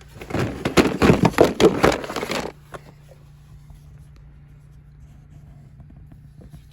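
DeWalt power-tool batteries clattering and scraping together as they are gathered up by hand: a rapid run of knocks for about two and a half seconds, then it stops. A steady low hum runs underneath.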